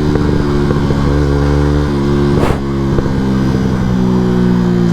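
Yamaha MT-125's single-cylinder 125 cc four-stroke engine with an Akrapovič exhaust, running at a steady cruise and heard from inside the rider's helmet. There is a short rush of noise about halfway through, and right at the end the engine pitch drops and climbs again.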